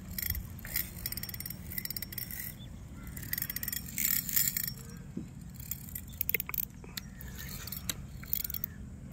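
Spinning reel being handled: scattered small clicks and metallic rattles as fingers work the line on the spool, over a steady low rumble.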